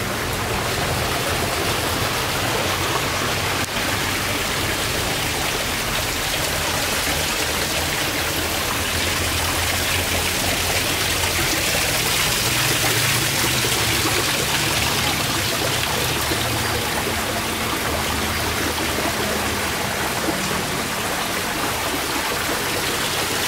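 Small rock waterfall splashing and running steadily into a pool.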